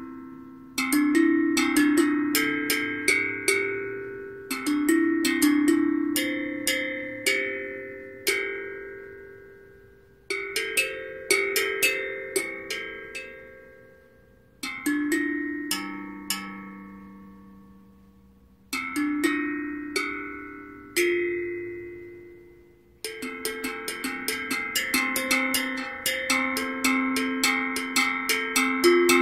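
Steel tongue drum struck with a pair of mallets in a free improvisation: single ringing notes that die away, played in phrases with short pauses between them, turning into a quick, busy run of notes near the end.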